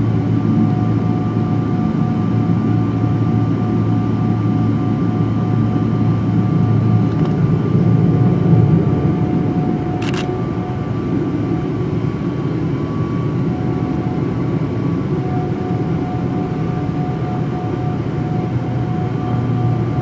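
Boeing 777-200LR's GE90 jet engines running steadily: a low rumble with two steady whining tones above it, and one sharp click about halfway through.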